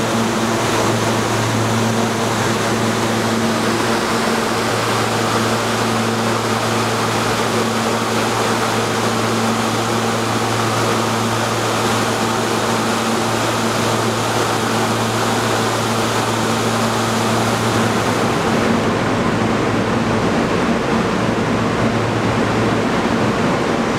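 R160 subway train standing in the station with its doors open, its ventilation and on-board equipment giving a steady rushing noise over a low hum. About 19 s in the hiss turns duller, and near the end the lowest hum fades.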